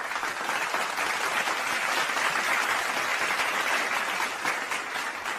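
A crowd applauding, a steady patter of many hands clapping that tails off near the end.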